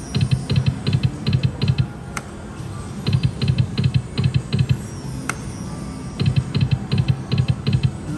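Thunder Cash slot machine spinning three times in a row, each spin a couple of seconds of rapid electronic ticking as the reels turn and stop, with a sharp click between spins. None of the spins pays.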